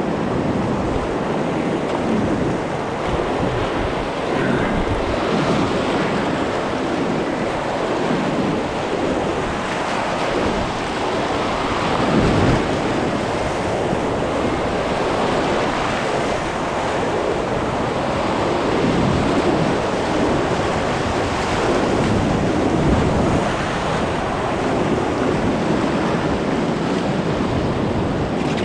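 Rushing river water, steady and loud, with wind noise on the microphone.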